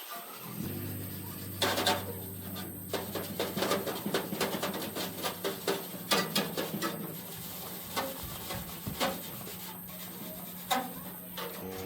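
A motor running with a steady hum, with many sharp, irregular scraping clicks over it.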